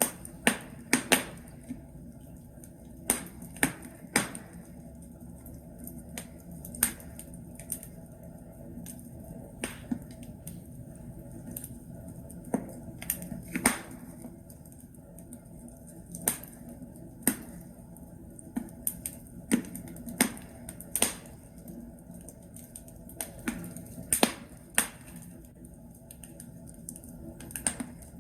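Wood logs burning in a fireplace, crackling and popping with sharp irregular snaps over a steady low rumble of the fire.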